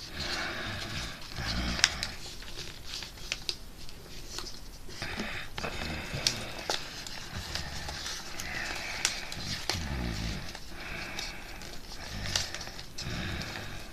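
Calendar paper rustling and crinkling as it is folded and creased by hand, with scattered sharp crackles and taps.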